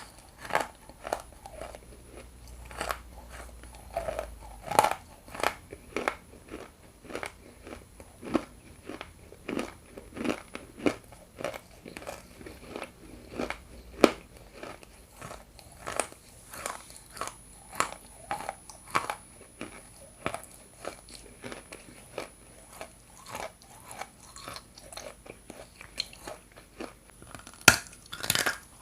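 Close-miked biting and chewing of hard chunks of edible Ural clay: irregular crisp crunches with softer chewing between, and a few sharper, louder bites, one in the middle and one near the end.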